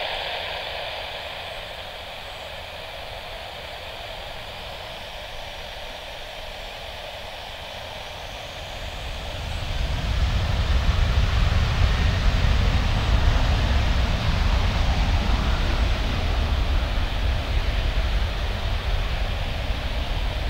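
Boeing 737-900ER's CFM56-7B turbofan jet engines: a steady whine at first, then from about nine seconds in a deep rumble swells and holds loud as the jet runs up to takeoff thrust for its departure roll.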